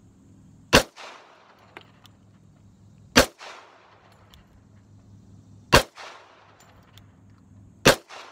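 Four single shots from a Springfield Armory 1911 Mil-Spec .45 ACP pistol firing Remington UMC ammunition, spaced about two to two and a half seconds apart, each followed by a short echo.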